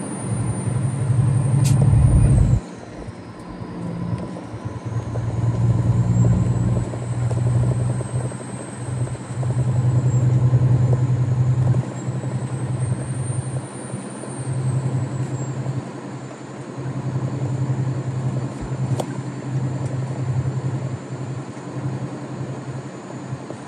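Semi truck's diesel engine heard from inside the cab while driving, a steady low drone that swells and eases every few seconds, with a faint high whine that wanders in pitch. A sharp click about two seconds in and another later on.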